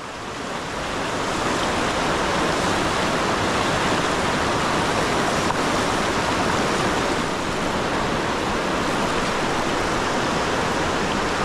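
Steady rushing of river current, an even wash of flowing water that swells up over the first second or so and then holds.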